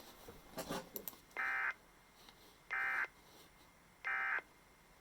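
Emergency Alert System end-of-message signal from a NOAA Weather Radio broadcast: three short, buzzy data bursts about a second and a half apart. They mark the close of the required weekly test.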